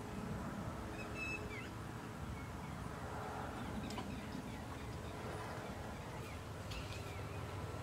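Outdoor countryside ambience: a steady low background with a few faint, short bird chirps about a second in and again a little later.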